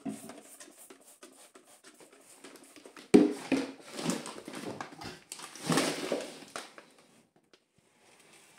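A spray bottle of cleaner spritzed onto a shelf and a microfibre cloth wiping it: light clicking and rubbing, with a sharp knock about three seconds in and a few louder short bursts after it.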